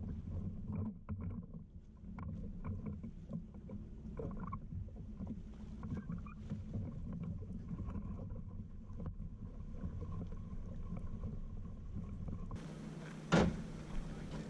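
A sit-on-top fishing kayak is brought in at a concrete boat ramp: a low rumble of water and wind, with scattered small knocks and splashes as someone steps out into the shallows and handles the boat. Near the end comes one sharp knock.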